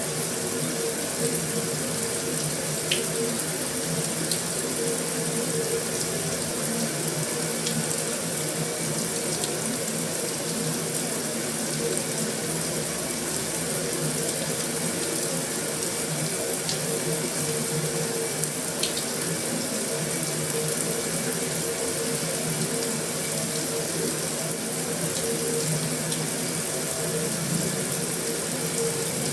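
Heavy rain falling steadily on a metal roof: a dense, even hiss with a few sharper drop ticks standing out now and then, over a faint steady low hum.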